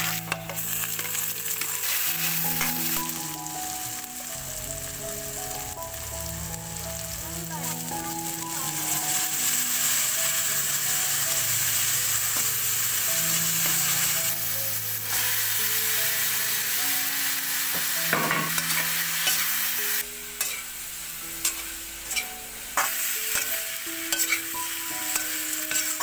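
Sliced onions and then potato chunks frying in hot oil in a metal wok, giving a steady sizzle. A spatula stirs them and now and then scrapes and knocks against the pan, mostly near the end.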